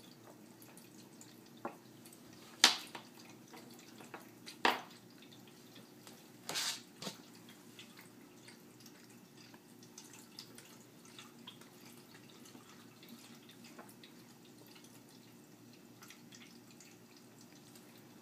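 Pet drinking fountain trickling and dripping over a steady low hum, with a few sharp taps in the first seven seconds, the loudest about two and a half seconds in.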